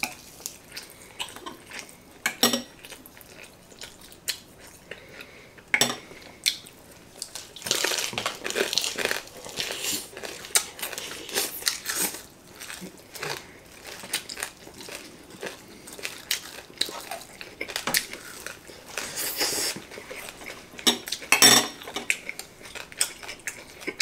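Chopsticks and cutlery clicking and scraping on plates at a meal, in scattered knocks, with bouts of chewing on crisp food now and then.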